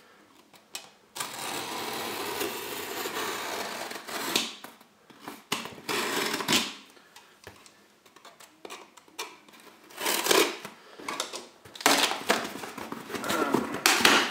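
Utility knife slicing through packing tape on a cardboard box: one long continuous cut starting about a second in and lasting about three seconds, then several shorter cuts and scrapes. Near the end, the cardboard flaps are pulled open with rustling and scraping.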